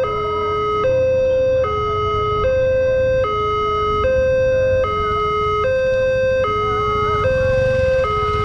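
Railway level-crossing warning siren, a new Multec unit, sounding a loud two-tone hi-lo wail. It switches between a higher and a lower tone about every 0.8 seconds.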